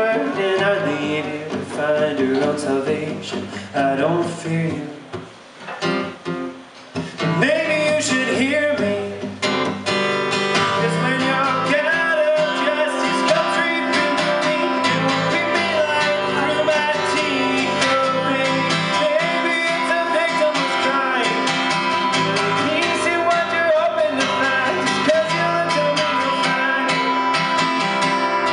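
A man singing while strumming an acoustic guitar, played live. The music drops quieter for a couple of seconds about five seconds in, then settles into steady strumming.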